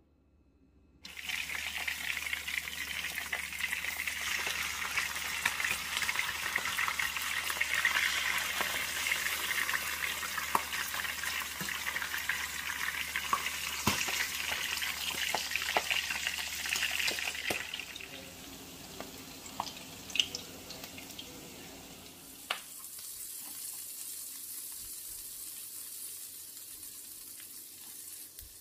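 Milkfish fillets frying in hot oil in a stainless pan: a dense sizzle that starts abruptly about a second in, with scattered sharp pops of spattering oil. In the last few seconds it gives way to a quieter, higher hiss of chopped onion sautéing.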